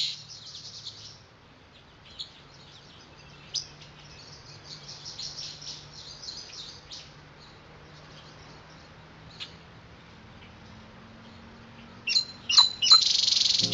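Small birds chirping in quick runs of short high notes, sparse at first and louder and denser near the end, over a faint steady low hum.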